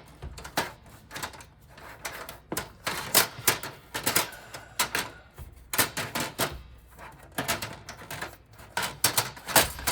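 A replacement power supply being worked into a Power Mac G4 computer case: a run of irregular clicks and knocks, a few a second, as it bumps and scrapes against the chassis.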